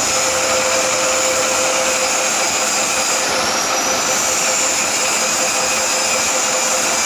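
Manual metal lathe running steadily while machining a steel bevel gear blank: a constant machine hiss with a steady hum and high-pitched whining tones that waver slightly in pitch.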